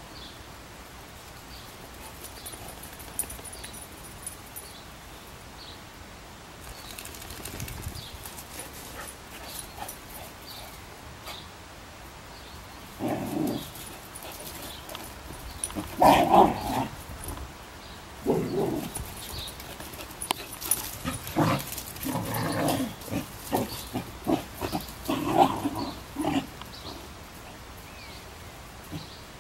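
Two dogs play-fighting, giving short bursts of growling and barking. The bursts come in a run from about halfway through, after a quieter stretch at the start.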